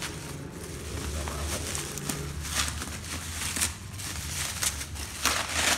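Bubble wrap crinkling and rustling as hands turn and tear open a bubble-wrapped parcel, in a few short bursts, the loudest near the end.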